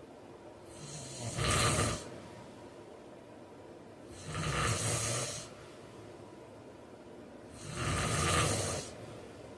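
A sleeping man snoring: three loud snores about three and a half seconds apart, each a low rattling rumble with a hiss of air, and quieter breathing between them.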